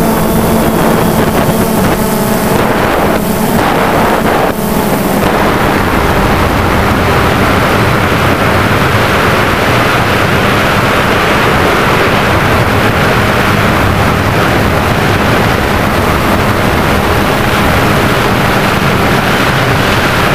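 DJI Phantom 2 quadcopter's motors and propellers whirring, mixed with wind rushing over the on-board GoPro's microphone. A steady hum fades out about five seconds in, leaving a steady rush.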